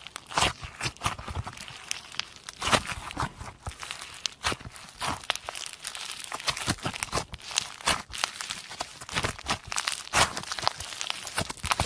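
Foam-bead slime (floam) being squeezed, stretched and folded by hand, giving a dense, irregular crackle of small pops with a few louder ones.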